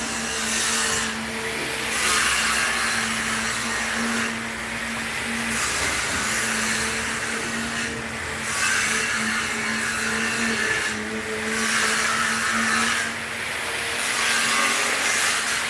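A steady machine hum runs throughout, with repeated rushes of hiss every two to three seconds.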